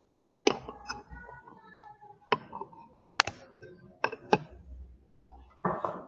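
Handling noise of a knocked-over camera being picked up and set back in place: a string of sharp clicks and knocks, about eight in all, irregularly spaced.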